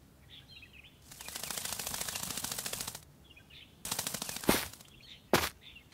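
Cartoon insect buzz: a rapid rattling buzz for about two seconds, then a shorter burst around four seconds in. Small bird chirps come in between, and two sharp clicks fall near the end.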